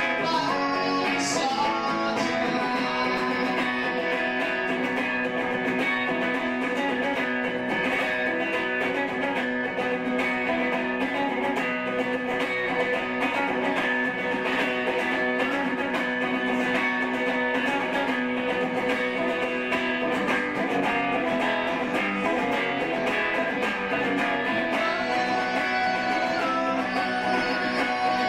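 Electric guitar playing an instrumental passage of a song, strummed chords ringing on steadily at an even level.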